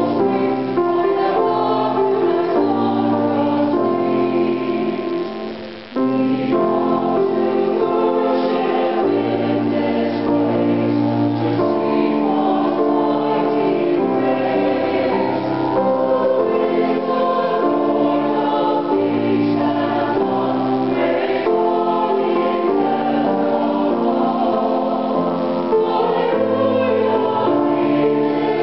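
A choir singing a hymn in four-part harmony, in slow held chords, with a short break between phrases about six seconds in.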